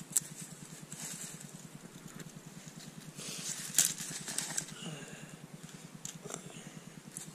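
Campfire crackling, with scattered sharp pops and snaps at irregular intervals. The loudest pop comes a little before four seconds in.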